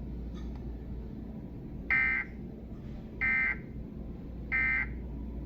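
Emergency Alert System end-of-message (EOM) data bursts: three short, harsh digital screeches about 1.3 seconds apart, the SAME tones that signal the end of the alert message.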